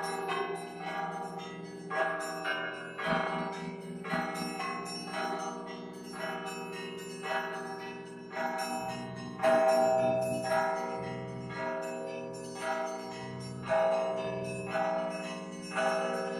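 Russian Orthodox bell ringing from a monastery belfry: several bells struck by their clappers in a rhythmic peal, sharp strikes about once a second over the steady hum of the larger bells, with the loudest strike a little past the middle.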